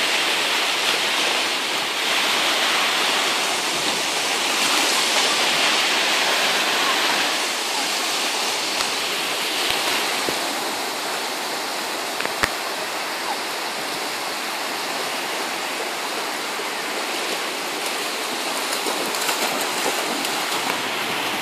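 Small lake waves breaking and washing up on a sandy shore: a steady rushing surf, a little louder in the first several seconds. One sharp click about twelve seconds in.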